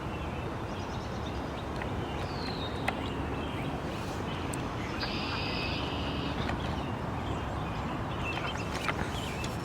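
Birds calling over a steady rushing background noise: a short falling high call about two seconds in and a longer, buzzier high call about five seconds in.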